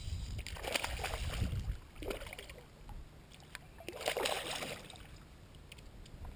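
Water splashing and sloshing in short bursts, strongest about a second in and again about four seconds in, as a foam popper-headed snake fly is pulled across the surface.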